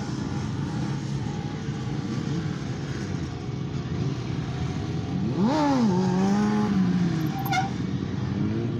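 Stunt motorcycles' engines running, with one engine revved hard about halfway through: its pitch shoots up, drops back and holds steady for about a second before easing off.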